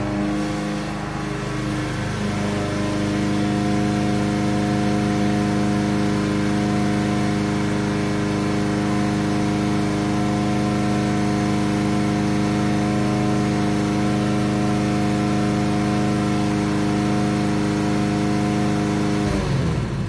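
Lawn mower engine running steadily, then shutting off near the end, its pitch falling as it winds down.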